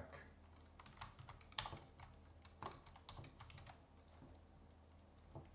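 Computer keyboard typing: scattered, faint key clicks that thin out after about four seconds, with one slightly louder click near the end.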